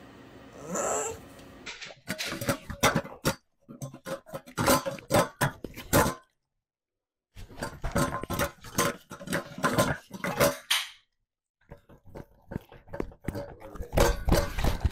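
A dog gives a short rising whine about a second in. Then two German Shepherds eat noisily from stainless-steel bowls: quick irregular chewing, slurping and clinking against the bowls, with a silent gap of about a second near the middle.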